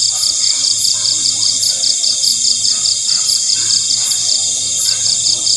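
Night insects chirping in a steady chorus: a rapid, even pulsing trill, about five pulses a second, over a constant high buzz.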